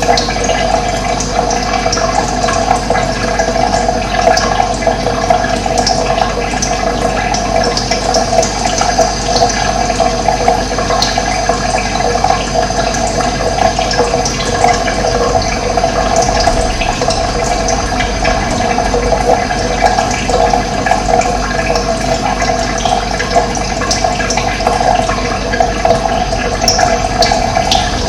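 Running water flowing steadily in an even rush, with short high bird chirps now and then.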